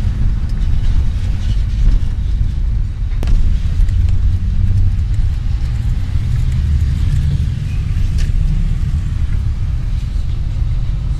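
Loud, steady low rumble with no speech, with a couple of faint clicks, one about three seconds in and one about eight seconds in.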